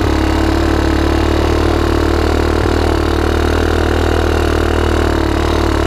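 The Rapidity 150cc quad's GY6 single-cylinder four-stroke engine running at a steady throttle as the quad rolls along, its note holding even throughout.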